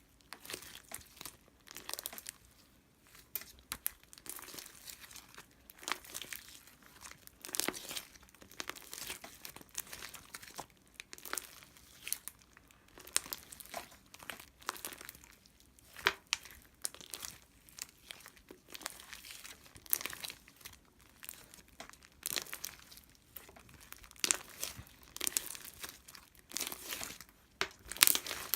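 Irregular crinkling and crackling of something being handled, like paper or plastic, with sharp crackles every fraction of a second.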